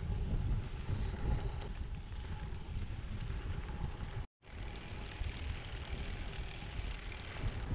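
Wind buffeting the microphone of a camera carried on a gravel bike at riding speed, a steady low rush with a faint hum of tyres rolling. The sound cuts out completely for an instant about four seconds in, then resumes the same.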